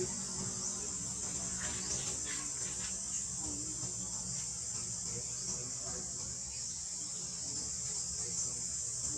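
Steady high-pitched insect chorus, like crickets or cicadas, droning without a break over a low background rumble, with a few faint short rustles.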